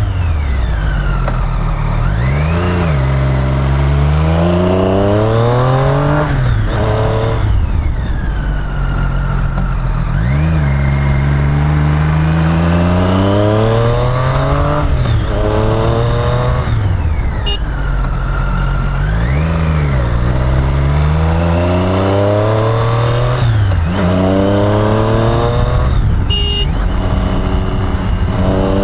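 Triumph Street Triple's inline-three engine, heard from the bike while riding, revving up and down over and over. The pitch climbs under acceleration, drops sharply at each upshift and climbs again, then falls away as the bike slows for a bend, roughly every eight or nine seconds.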